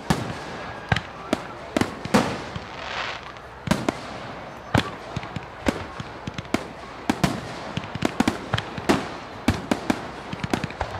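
Fireworks bursting: a rapid, irregular series of sharp bangs, several a second, with a brief hiss about two seconds in.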